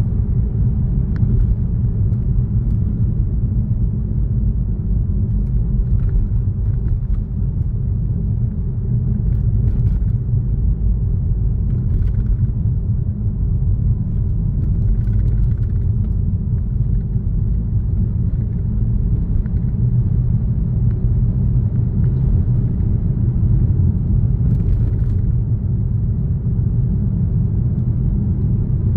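Car driving steadily along a road: a constant low rumble of tyres and engine with no changes in pace, and a few faint light clicks here and there.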